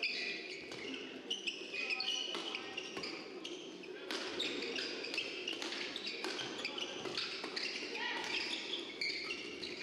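Badminton doubles rally: rackets hitting the shuttlecock in a quick series of sharp strokes, with players' shoes squeaking on the court mat, over a steady background of a large hall.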